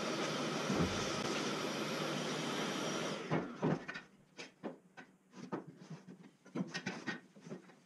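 A steady dense rushing noise that cuts off suddenly about three seconds in. It is followed by a run of light, uneven clacks and knocks as square steel tubes are set down and shifted into a frame on a wooden workbench.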